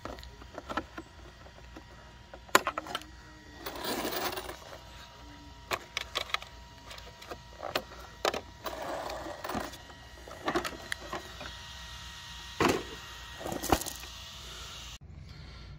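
Plastic body shell of an ARRMA Fire Team RC truck being unfastened and lifted off by hand: a string of sharp clicks and knocks mixed with short bursts of plastic rattling and scraping.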